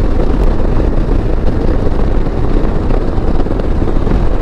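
Royal Enfield Himalayan 411's single-cylinder engine and wind rush while riding at close to 100 km/h, a steady, dense drone.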